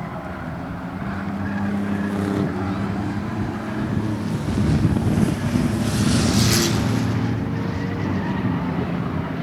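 Six-cylinder stock cars racing around an asphalt short-track oval, engines running at speed. The sound swells as the cars come past, from about four to seven seconds in.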